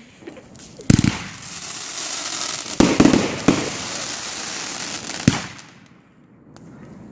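Fireworks going off: a sharp bang about a second in, a cluster of bangs around three seconds and another about five seconds in, with a continuous hissing crackle between them.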